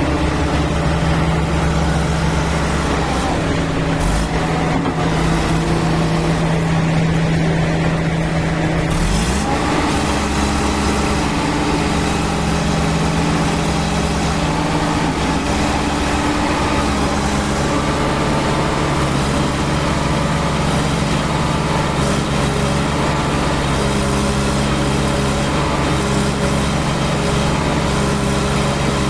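JCB 3DX backhoe loader's Kirloskar diesel engine running steadily under work; about nine seconds in its pitch steps up as the engine speeds up, then holds at the higher speed.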